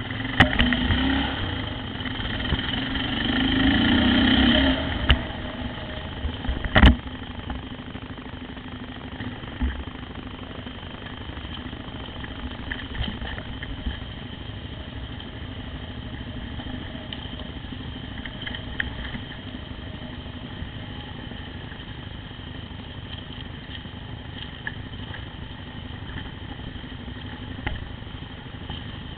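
Motorcycle engine running at trail speed, revving up over the first few seconds, then settling into a steady, even drone. A single sharp knock about seven seconds in.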